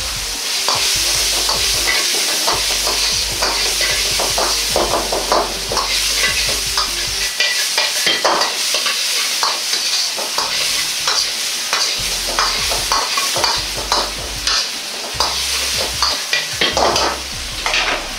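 Diced sausage sizzling in hot oil in a wok, with a metal ladle repeatedly scraping and knocking against the wok as the food is stir-fried.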